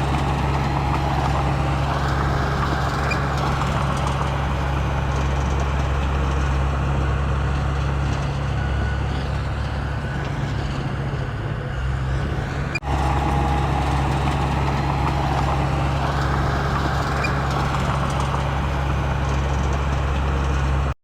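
Heavy-equipment diesel engine running steadily with a deep, even hum, with a brief dropout about 13 seconds in.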